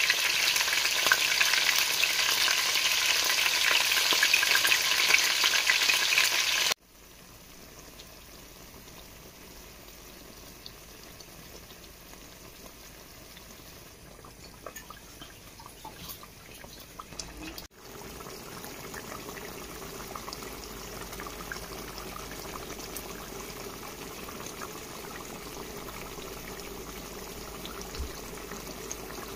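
Chicken pieces sizzling loudly as they brown in hot oil in a pot. The sizzle cuts off suddenly about seven seconds in. After that there is a much quieter, steady bubbling of stewed chicken simmering in its gravy.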